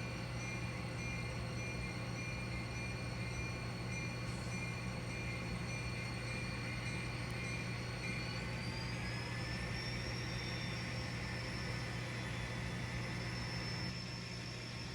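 N scale model locomotive running in reverse with its cars, a steady mechanical whine over a constant low hum. The whine steps up in pitch about eight seconds in, and the sound drops a little near the end.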